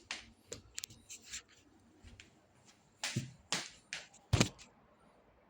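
Irregular handling noises: light clicks and knocks with a few short scrapes, the loudest a thump about four seconds in.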